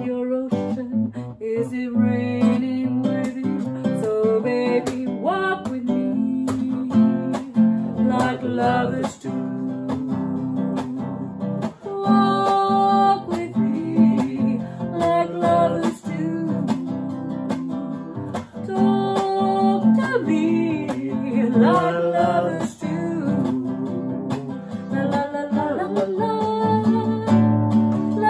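Acoustic guitar strummed as accompaniment while a woman and a man sing a song.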